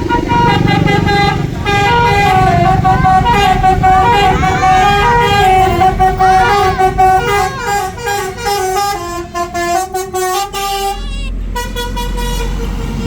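Tour bus 'basuri' musical horn (telolet) playing a tune of stepped notes, several sounding together. The horn stops about eleven seconds in, leaving a low rumble.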